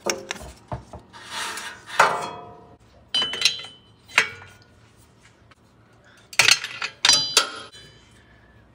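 Metal wrench clinking against the exhaust while the front oxygen sensor is loosened from the exhaust pipe: a series of sharp metallic clinks, a few ringing briefly, with handling noise between.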